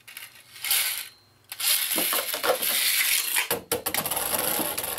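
Wings Falcon spinning top launched by ripcord into a clear plastic stadium. A short rasp comes under a second in. From about a second and a half in there is a steady loud scraping hiss with scattered clicks as the top spins on the plastic floor.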